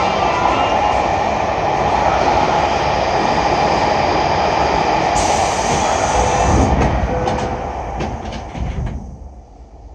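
Loud running rumble of a train on the rails, heard from inside a subway car, dying away sharply about nine seconds in.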